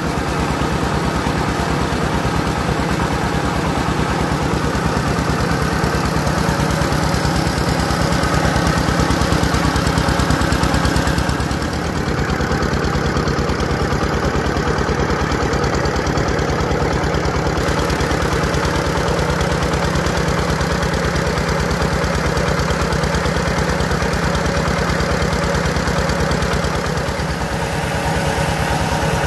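Diesel engine of a mobile rice mill running steadily under load, driving the rice huller and polisher, with the whir and rattle of the milling machinery over it.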